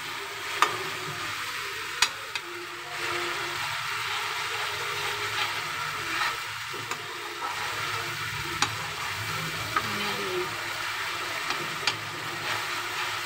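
Onion-tomato masala sizzling in oil in a kadhai as it is bhuna-fried and stirred with a metal ladle, with a few sharp clinks of the ladle against the pan.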